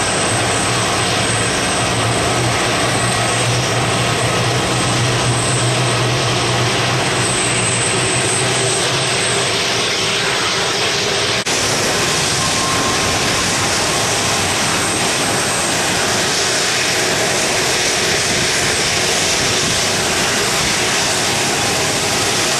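Boeing 787-9 jet engines at takeoff power, heard from a distance as a steady rushing jet noise through the takeoff run and the climb-out. An abrupt break about halfway through drops a low hum and a faint high whistle that run under the first half.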